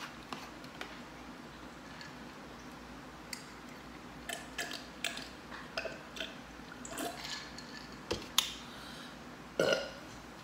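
Eating and drinking sounds: short clicks of fork and glass, sips from a glass of iced cola, and a short burp near the end.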